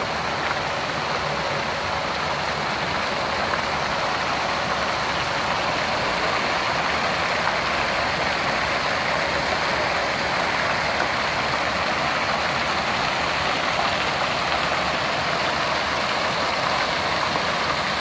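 Steady splashing hiss of many arching fountain jets falling into the water of a basin.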